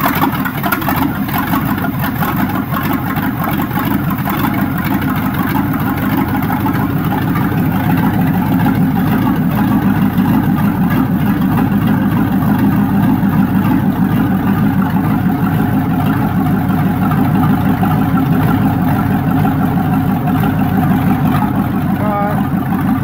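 Chevrolet 350 small-block V8 with throttle-body injection running loud and steady on its first start, with no exhaust system fitted. It runs choppy, which the owner puts down to air still in the fuel lines and untimed ignition, and perhaps a crossed plug wire.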